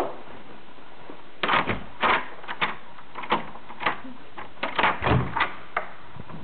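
Doorknob and latch clicking as a door is opened, a run of irregular sharp clicks and knocks with a heavier, deeper knock about five seconds in.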